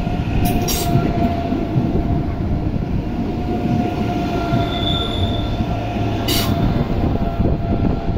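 ICE 3M (class 406) high-speed electric train rolling slowly past as it departs, a steady rumble of wheels on rail with a thin wheel squeal and a brief higher squeal about five seconds in. Two short hissing bursts come about half a second in and about six seconds in.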